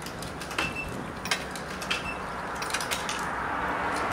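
Self-serve car wash coin and control box worked by hand: a string of sharp clicks and clacks at irregular intervals, three of them answered by a short high beep.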